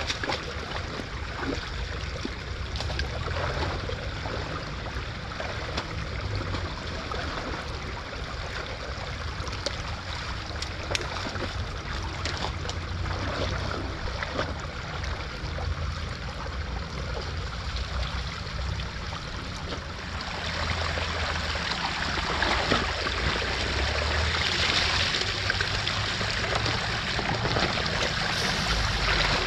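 Shallow creek water running and trickling through a blockage of sticks and leaf litter, with splashing from boots wading in it. About twenty seconds in, the rush of water grows louder as debris is pulled away and water pours through the opened gap.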